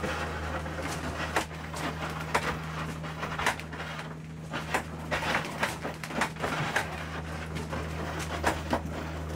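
A steady low hum with irregular sharp clicks and knocks scattered through it.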